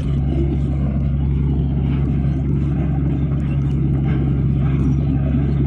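Heavy diesel engine of an earthmoving machine running steadily, a constant low drone.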